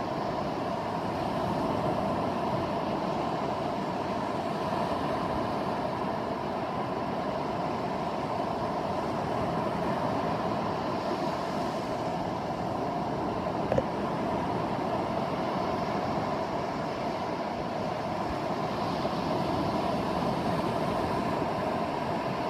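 Steady wash of ocean surf and wind, heard through a phone's microphone, with one short click about 14 seconds in.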